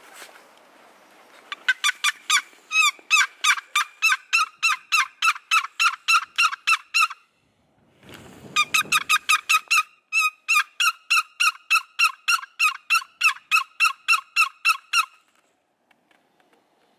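Wooden paddle box turkey call, freshly chalked, worked in two long runs of quick yelps at about four a second, imitating a hen turkey's yelping to call in birds. A short rustle comes between the runs.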